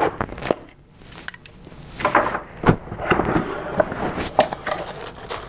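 Cardboard mailer box being handled and opened by hand: scattered taps and scrapes on the cardboard with a sharp knock a little under halfway, then the crinkly rustle of tissue paper inside from just past halfway.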